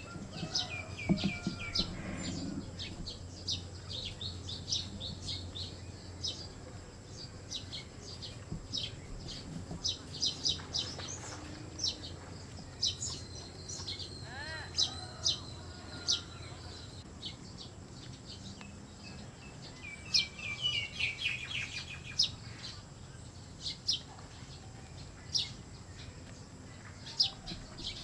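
Birds chirping, many short high calls scattered through, with a few quick runs of falling notes, over a faint steady high-pitched tone.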